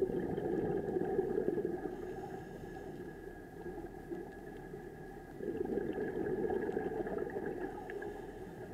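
Underwater recording of a scuba diver's exhaled regulator bubbles: a rushing hiss that swells twice, at the start and again about five and a half seconds in, over a faint steady hum.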